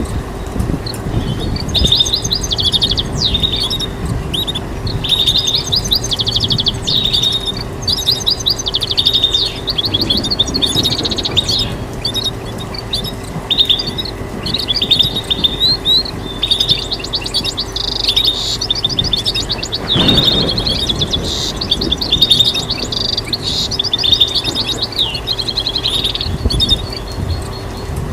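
European goldfinch singing: a long run of rapid twittering phrases and trills with short pauses between them, over a faint steady hum. There is a single dull knock about two-thirds of the way through.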